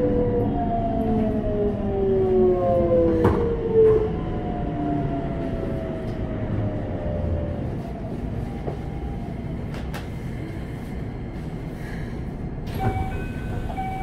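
Toyo GTO-VVVF inverter of a Keikyu 600 series train, heard inside the car: a whine of several tones falling in pitch as the train brakes, dying away about halfway through, over the rumble of the wheels. Two sharp knocks come about three to four seconds in.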